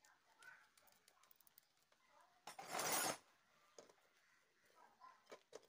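Faint metal clicks as the gear-oil drain bolt of a Honda Activa engine case is threaded in by hand and tightened with a socket wrench. About two and a half seconds in there is one short, loud burst of scraping noise, under a second long.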